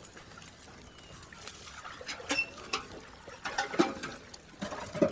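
Clothes being washed by hand: water sloshing and wet cloth handled in a basin, with a few sharp knocks scattered through the second half.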